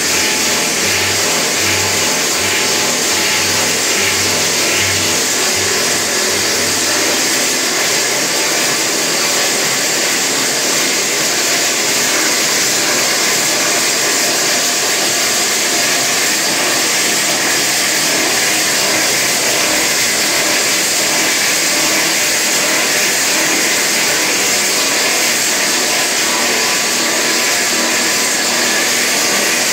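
Hydraulic drill rig drilling holes into the tunnel crown for pipe roofing: a loud, steady, unbroken machine noise.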